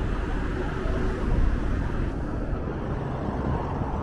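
Steady low rumble of wind and road noise on the microphone of a camera riding on a moving bicycle, mixed with city traffic.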